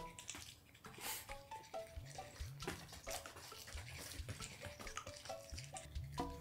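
Quiet background music: a light melody of short, separate notes.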